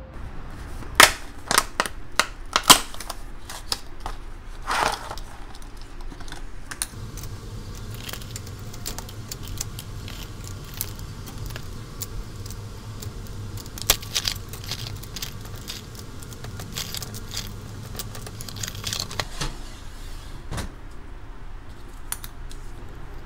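Small hard objects being handled at close range: a run of sharp clicks and rattles, loudest in the first few seconds, with rustling between them. A low steady hum runs underneath from about a third of the way in to near the end.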